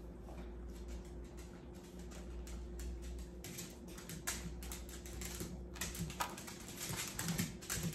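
Faint, irregular light clicks and rustles of handling, coming more often in the second half, over a low steady hum.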